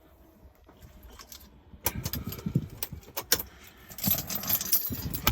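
Irregular clicking, rattling and rustling of handling and movement noise, starting about two seconds in and loudest in the last second or so.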